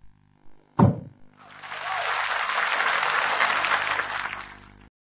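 A single sharp thump, then audience applause that builds up about a second and a half in, holds steady and cuts off abruptly near the end.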